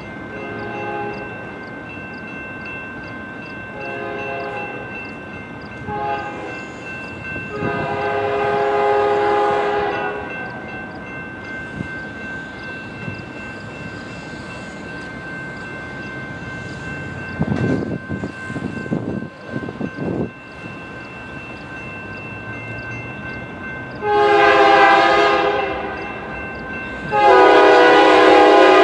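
BNSF freight locomotive's air horn sounding a grade-crossing signal as the train approaches: two blasts, a short one, then a long one in the first ten seconds, and two long, louder blasts near the end. A crossing bell dings steadily underneath.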